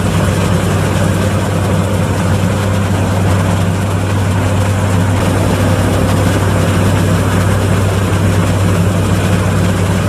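Massey Ferguson 520 Super II combine harvester running steadily under load while harvesting wheat: a continuous low engine drone mixed with the hum of the cutting and threshing machinery.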